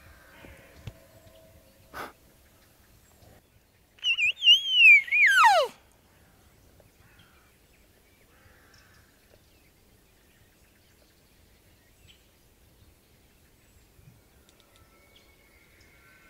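An elk bugle: a loud, high warbling whistle that falls steeply in pitch, lasting under two seconds, about four seconds in. A single sharp click comes shortly before it.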